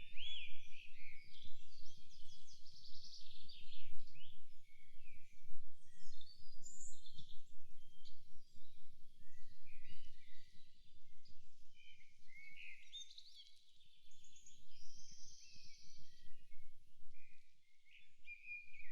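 Several songbirds singing and calling at once, a dense mix of chirps, trills and whistles, over a low rumble of background noise.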